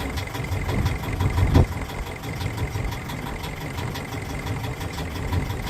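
Yanmar marine diesel inboard on a saildrive idling steadily in neutral, with a brief thump about a second and a half in.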